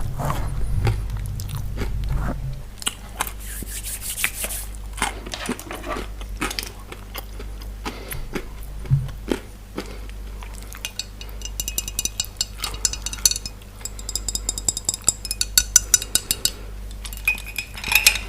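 Close-miked eating and table sounds: biting and chewing pizza and fries, with many short clicks and clinks of cutlery and dishes, and a run of rapid fine clicking a little past the middle.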